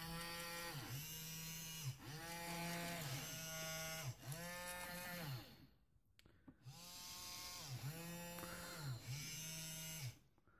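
Maplin robotic arm's small geared DC motors whirring in a string of short runs, the pitch dipping briefly each time a run stops and restarts. They fall silent for about a second in the middle, then whir again and stop near the end.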